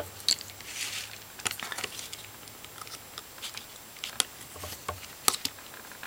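Small screwdriver working the tiny screws of an opened HTC 8525 phone: a few scattered small clicks and light handling noises, the sharpest pair about five seconds in.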